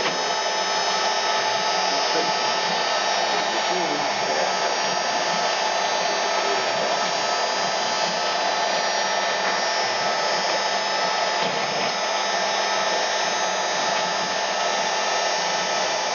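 ShopBot CNC router's spindle running steadily at speed, a constant high whine over an even rush of air, while the bit moves through a test pass above the workpiece without cutting.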